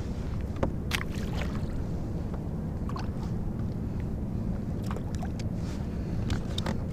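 Water splashing and lapping against the hull of a Hobie Outback fishing kayak on the sea: a handful of short, scattered splashes over a steady low rumble.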